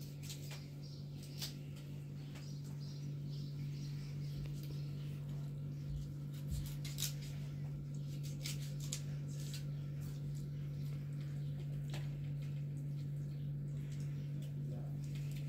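Knife cutting raw meat in a large metal bowl, with hands handling the pieces: scattered clicks and taps of the blade against the metal, over a steady low hum.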